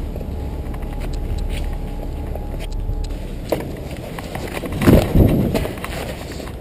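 Scuffs and small knocks of a person climbing along a ledge against a brick wall, over a steady low rumble. About five seconds in there is a loud cluster of thumps and scrapes as he moves down off the ledge.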